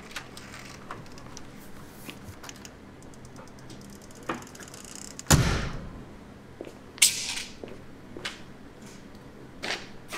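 Workshop handling noises: scattered knocks and clunks of objects being moved and set down, with a heavy thud about five seconds in and a short bright clatter about two seconds later, over a faint steady low hum.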